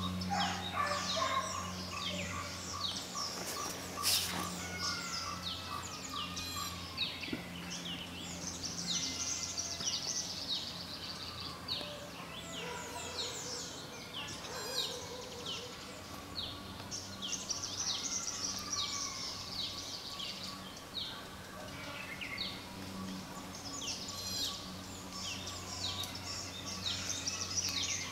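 Many birds chirping and calling at once, a dense chatter of short, quick notes, over a steady low hum. There is one sharp click about four seconds in.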